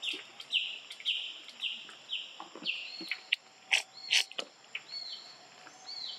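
Short high calls repeated about twice a second, each sliding downward. After about three seconds they give way to slower calls that rise and fall. Several sharp dry clicks or rustles come in the middle.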